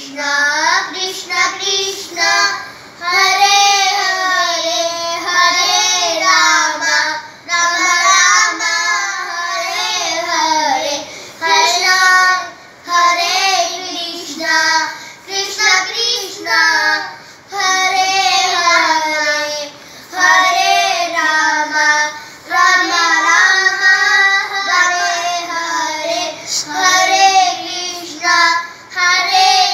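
Young girls singing a Hindu devotional mantra chant, a repeating melody in short phrases with brief breaths between them.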